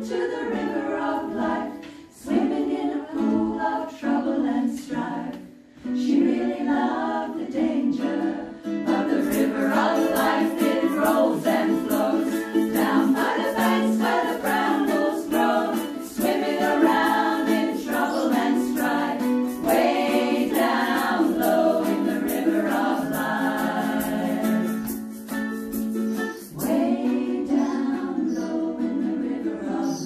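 Women's vocal group singing a song in harmony to ukulele accompaniment. A steady, sharp rhythmic beat joins about a third of the way in and stops a few seconds before the end.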